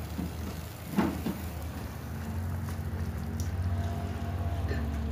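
Pot of coconut-milk fish curry simmering, with a few bubbling pops in the first second or so, the loudest about a second in, over a low steady hum.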